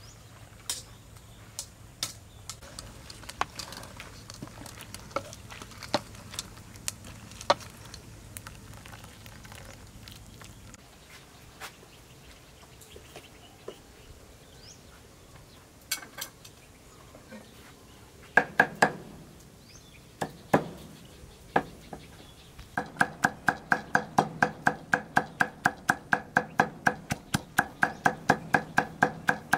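Knife chopping on a cutting board. There are a few scattered light knocks and clicks at first, then a couple of heavier strokes, and in the last quarter a fast, even run of about three chops a second.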